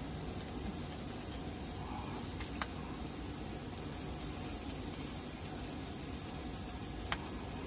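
New York strip steak searing on its first side in an 8-inch Hexclad frying pan, a steady sizzle. Two faint clicks, about two and a half seconds in and near the end.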